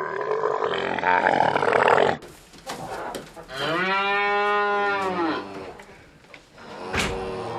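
A domestic cow mooing: one long call of about two seconds whose pitch rises and then falls. Before it, in the first two seconds, there is a rougher, noisier animal call, and near the end a sharp click comes just before another low call begins.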